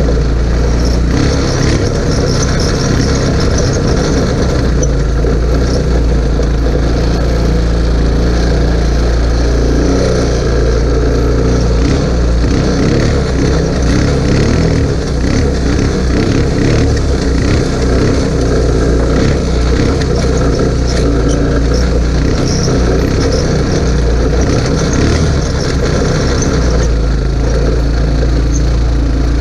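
A small 150 cc ATV's engine running steadily while riding over rough ground, with scattered knocks and rattles from the bumps.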